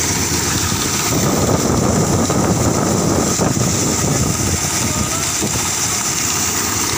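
Preet combine harvester running steadily while unloading, with the rushing hiss of shelled maize grain pouring from its unloading spout into a trolley; the sound grows fuller about a second in.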